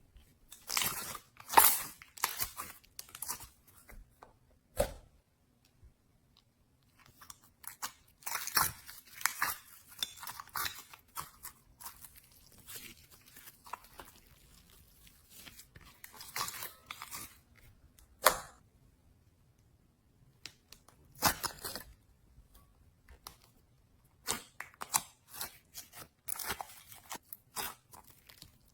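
Slime being squished and stretched by hand, with sticky crackling in irregular bursts separated by short quiet pauses.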